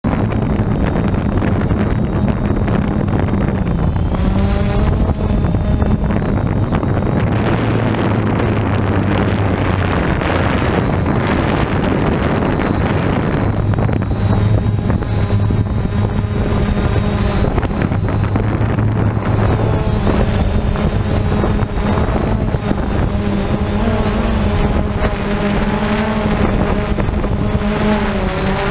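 DJI Phantom quadcopter's motors and propellers buzzing steadily, their pitch shifting up and down now and then as the drone manoeuvres, with some wind noise on the microphone.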